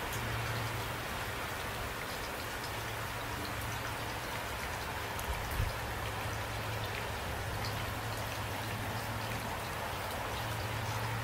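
Steady rain falling, with a brief low thump about five and a half seconds in.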